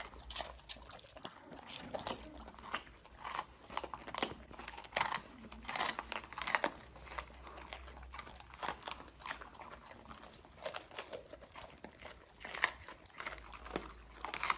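Two golden retrievers, an adult and a puppy, biting and chewing raw green bell peppers: irregular crisp crunches, one every half second or so.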